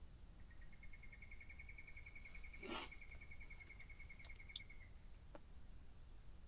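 An animal's rapid, even trill at one steady high pitch, about nine pulses a second, lasting about four and a half seconds. A short rustle-like burst sounds about halfway through, and a faint click follows later.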